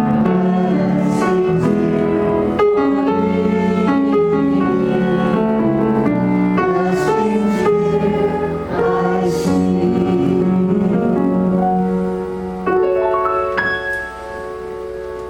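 Slow, quiet meditation music led by piano, with long held chords; it gets softer near the end.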